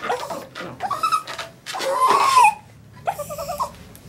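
Havanese dog whining and whimpering in several short cries that bend up and down, the loudest a rising-then-falling whine about two seconds in, then a quick run of small whimpers.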